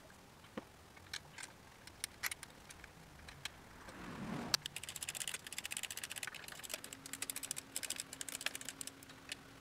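Scattered light clicks and knocks of hands working the plastic thermostat housing into place, then, about halfway through, a long fast run of ratchet-wrench clicks as the housing bolts are run in.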